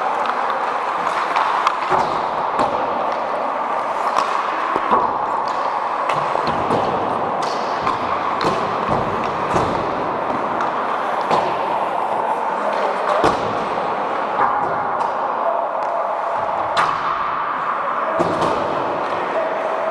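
Ice hockey rink noise: a steady scraping hiss with frequent sharp knocks and bangs of pucks and sticks striking the boards and ice.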